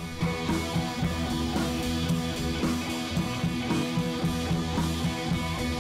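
Background music led by guitar, with a steady strummed rhythm.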